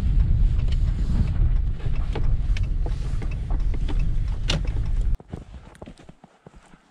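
Pickup truck driving on a snowy road, heard from inside the cab as a steady low rumble of road and engine with scattered small clicks. About five seconds in it cuts off abruptly to faint crunching footsteps in snow.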